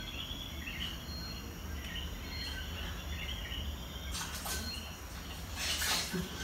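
Steady background chirping of night insects over a low hum, with two brief bursts of rustling about four and six seconds in as two dogs wrestle on a sheet.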